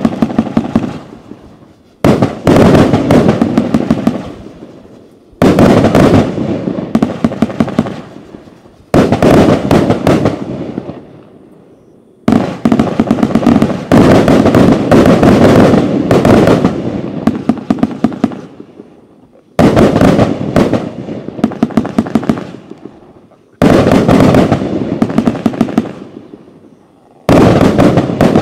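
Riakeo Tsunami 30 mm firework cake firing in volleys. Each volley starts suddenly with a rapid run of shots and bursts, then fades over a few seconds before the next begins. A new volley comes about every three to four seconds, with one longer stretch of continuous firing about halfway through.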